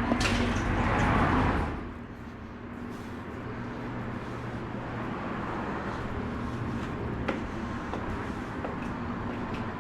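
Car running, with a loud rush of road and rain noise in the first second and a half that settles to a steady engine hum. A single sharp click comes about seven seconds in.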